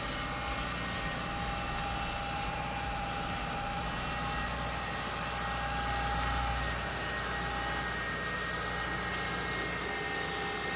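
Geo Tracker's four-cylinder engine idling steadily.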